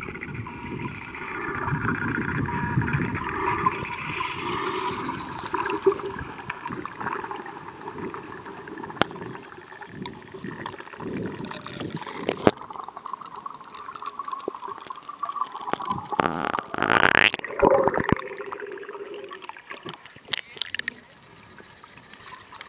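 Muffled water movement heard through a camera held underwater while swimming: a continuous gurgling rush with scattered sharp clicks, and a louder burst about seventeen seconds in.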